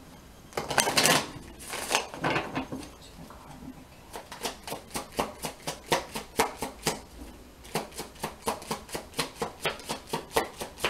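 A deck of oracle cards being shuffled by hand: a few louder rustles in the first seconds, then a steady run of quick card slaps, about four a second, with a brief pause around the middle.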